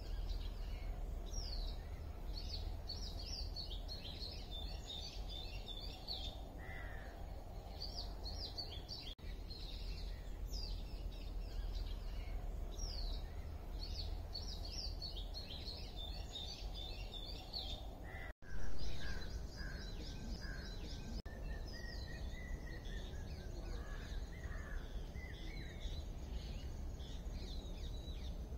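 Many small birds chirping and calling over a steady low rumble of outdoor ambience. About two-thirds of the way through, the sound breaks off for an instant and comes back with a brief louder burst, after which different bird calls are heard, among them a longer rising and falling call.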